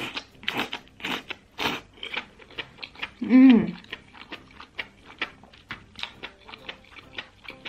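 Close-miked eating: a few long slurps of enoki mushrooms in the first two seconds, then wet chewing with many small mouth clicks. About three seconds in comes a short, closed-mouth hummed "mmm" that rises and falls, the loudest sound.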